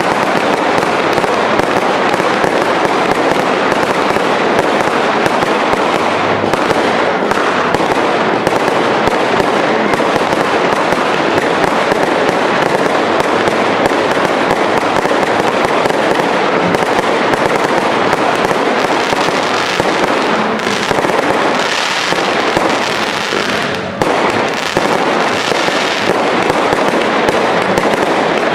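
Cake fireworks firing in rapid, unbroken succession: a dense stream of launch shots and bursting shells with crackle, with only a brief dip about three quarters of the way through.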